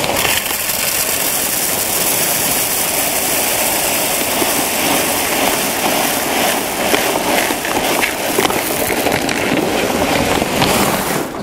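Hydroton expanded-clay pebbles pouring in a steady stream from a bag into a black plastic bucket, a continuous rattle of the clay balls landing on one another.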